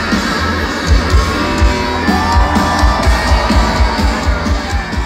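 Live band playing an instrumental stretch through a festival sound system: electric guitars over a steady kick-drum beat, heard loud from within the crowd.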